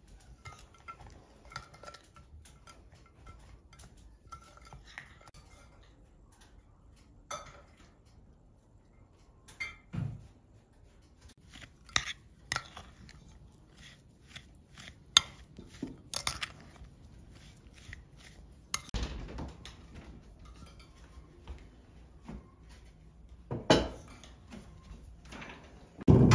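Metal spoon scraping and clinking against a glass bowl while stirring a crumbly mixture with raisins: irregular strokes with several louder knocks.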